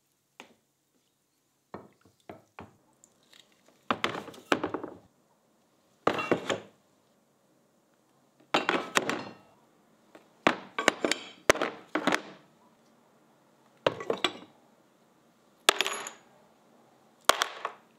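Steel pipe vise parts clinking and clattering as they are set down in a plastic bin and land on one another. This happens in about a dozen separate bursts of sharp knocks with brief metallic ringing, separated by short pauses.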